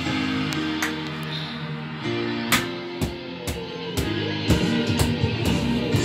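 Rock music with guitar, sustained chords changing about every second, with a few sharp hits through the second half.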